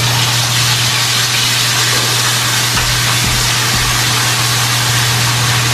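Bone-in steak sizzling steadily in a hot ridged grill pan as it sears, with a steady low hum underneath.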